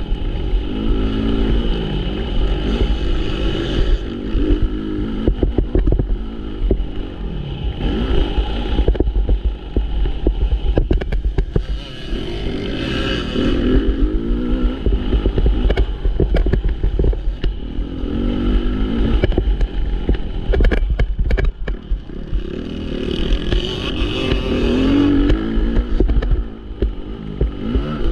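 MX1 motocross bikes racing on the track, engines revving up and down as they accelerate and shift, rising in swells every few seconds as riders pass. Sharp crackles come and go over a steady deep rumble.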